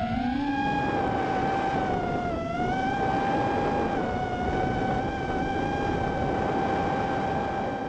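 Whine of a 5-inch FPV quadcopter's brushless motors and tri-blade propellers in fast flight, heard from a camera on the drone itself, over rushing propeller wash and wind. The pitch rises about half a second in, sags briefly as the throttle eases after about two seconds, then holds steady.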